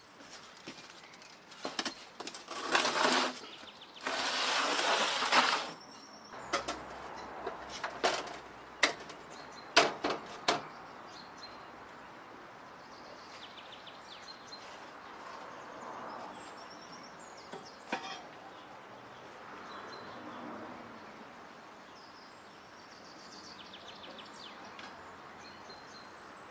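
Two loud rushing bursts and a string of sharp knocks in the first ten seconds, then quiet outdoor ambience with small birds chirping now and then.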